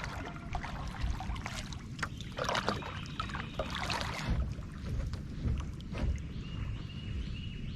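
Kayak paddle strokes splashing in the water, in irregular bursts over a constant low rumble.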